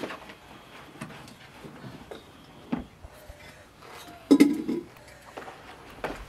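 Scattered clicks and knocks of hand food preparation: a knife cutting apples and pieces dropped into a plastic bowl, with a louder clatter a little past four seconds.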